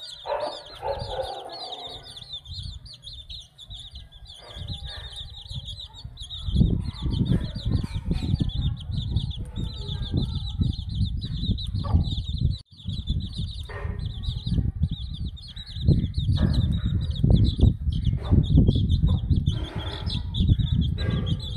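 Young chicks cheeping continuously in a high chorus as they feed, with a hen's brief clucks in the first couple of seconds. From about six seconds in, loud low rumbling noise on the microphone.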